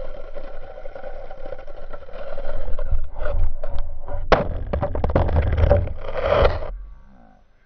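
Ice skate blades gliding and scraping over ice-glazed pavement, with a rumble underneath and a sharp scrape about four seconds in; the sound fades out near the end.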